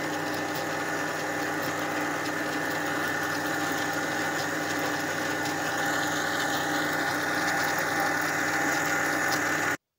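Electric mixer running steadily, its beaters whipping eggs and sugar in a bowl; the motor cuts off suddenly near the end.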